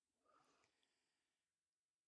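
Near silence: a gated pause with no audible sound.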